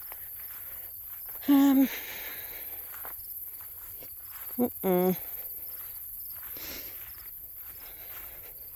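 Insects chirping in a steady, fast-pulsing high trill, the evening chorus of a dry summer field.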